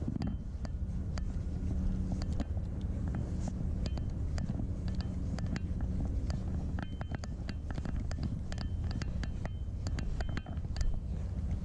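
Wind rumbling on the microphone, with irregular sharp clicks and ticks from a Daiwa Crest 3000 spinning reel as its handle is cranked to retrieve the line.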